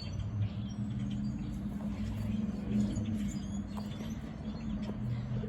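Backyard ambience: faint, scattered small-bird chirps over a steady low hum.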